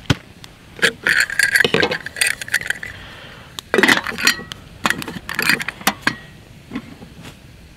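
Metal clinks and rattles as a lid is set onto a metal camp pot and its wire bail handle is swung and knocked against the rim. The clinks come in several short clusters, one with a brief metallic ring about a second in.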